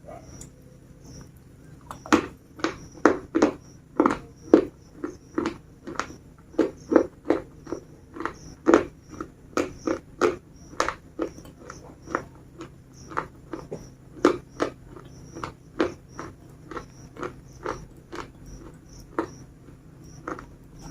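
Crisp biscuits crunching as they are bitten and chewed: a steady run of sharp crunches, about two a second, starting about two seconds in and getting sparser and softer near the end.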